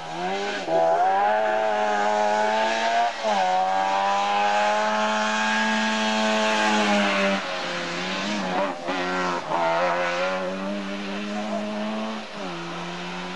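Rally car engine revving hard as the car drives through the stage. Its pitch climbs and then drops back sharply several times as it changes gear and lifts off, first about half a second in and again about three seconds in, with several quicker drops in the second half.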